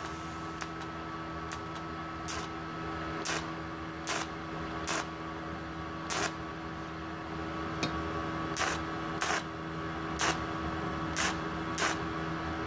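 TIG welding arc being struck again and again from a WP-17 torch on a Multipro TIG 200A-SA inverter welder: sharp crackling snaps at irregular intervals, a dozen or more, over the machine's steady hum, with a higher whine that stops about three seconds in. The snaps show the high-frequency arc start firing now that the torch's faulty trigger switch has been replaced.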